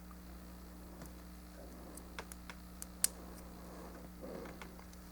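Scattered light clicks and taps of plastic model-kit parts being handled and pressed together, the sharpest about three seconds in, over a faint steady hum.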